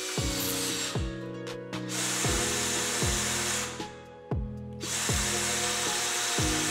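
Cordless drill motor running in three bursts of about two seconds each, turning a small bevel-gear box through its chuck, over background music with a steady beat.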